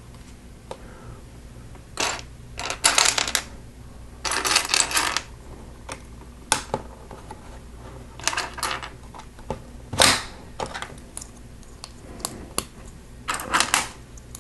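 Plastic Lego pieces clicking and rattling as they are handled and snapped together, in short clusters of rapid clicks every second or two.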